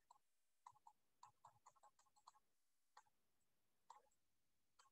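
Near silence with faint, irregular clicks and taps, about a dozen, from a digital pen writing on a tablet.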